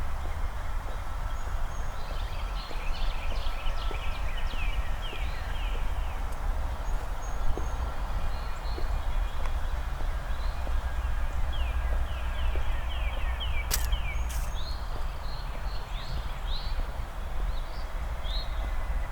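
Walking footsteps over a steady low rumble, with songbirds singing bright runs of quick down-slurred notes about three seconds in and again near the middle. One sharp click comes a little after the middle.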